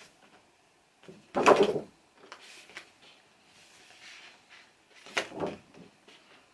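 Paper insert sheets from an LP sleeve handled and rustled on a wooden table, with two louder bumps: one about a second and a half in, the loudest, and another about five seconds in.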